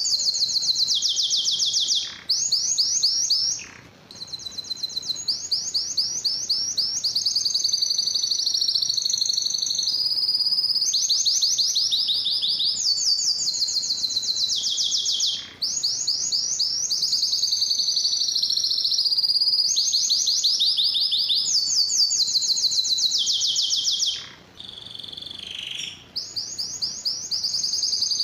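Domestic canary singing a long, nearly unbroken song of rapid high trills, each tour lasting a second or two and jumping to a new pitch, with a few short breaks.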